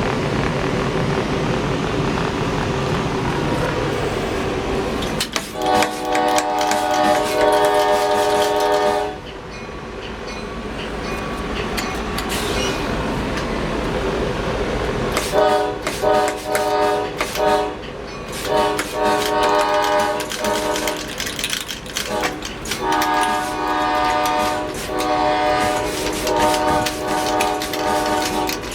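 Locomotive air horn, a Nathan K5LA five-chime, sounding its multi-note chord. After a few seconds of steady locomotive rumble it blows one long blast of about four seconds. After a pause it plays a long run of short and long blasts in quick succession.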